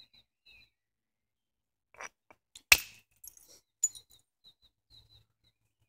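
A few sharp stone-on-flint knapping strikes while a flint hand axe is being shaped, the loudest a little before the middle and another about a second later.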